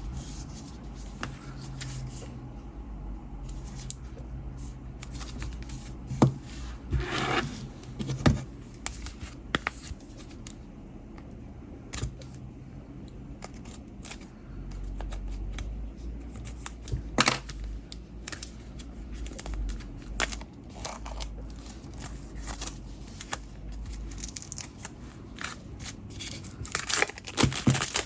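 A CD deluxe-edition package being unwrapped and opened by hand: irregular scrapes, taps and rustling of wrapping and cardboard, louder in bunches about six to eight seconds in, around seventeen seconds, and near the end.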